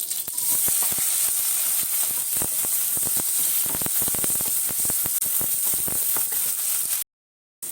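Onions frying in hot oil in a kadai: a steady sizzle with many sharp crackling pops and spatters from oil tempered with mustard seeds. The sound cuts out completely for about half a second near the end.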